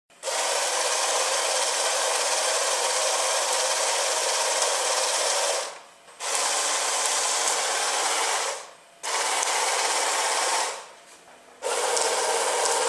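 Corded electric chainsaw built into a replica Evil Dead prop, running with its chain spinning free under no load. It runs steadily in four stretches, winding down and cutting back in three times in short gaps.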